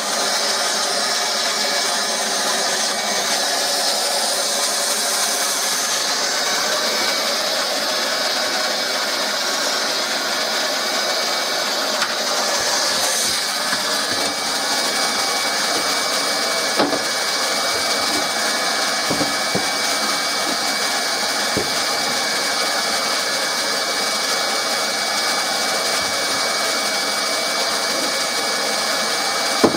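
Hot-air plastic welder running with a steady blowing hiss while plastic seams are welded, with a couple of faint knocks about midway.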